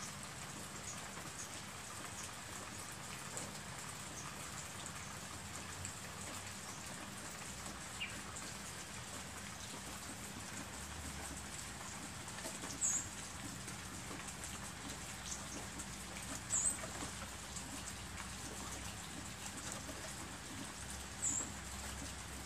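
Steady rain falling, an even hiss throughout. In the second half, a few short, very high squeaks stand out over it.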